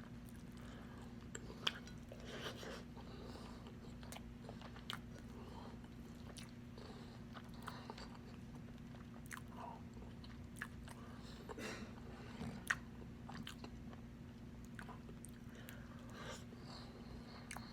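Close-miked chewing and wet mouth clicks of someone eating pork adobo, with scattered short clicks throughout and two sharper ones, about two seconds in and near the thirteen-second mark. A steady low hum runs underneath.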